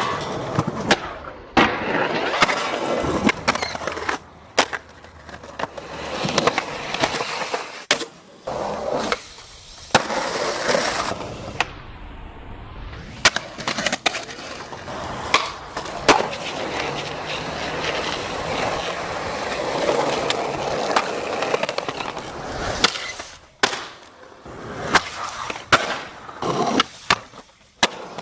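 Skateboard wheels rolling on concrete, with the sharp clacks of boards popping, landing and slamming down repeatedly, broken by several abrupt cuts between clips.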